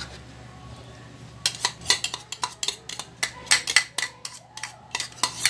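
A metal spoon clinking and scraping against a bowl and an aluminium pan as grated cheese is knocked out into the sauce: quick irregular clicks, several a second, starting about a second and a half in, over a low steady hum.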